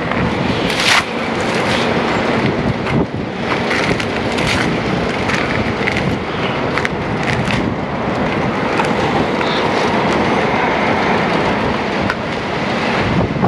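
Strong gusty wind blowing across a phone's microphone: a loud, steady rushing noise broken by several sudden buffets.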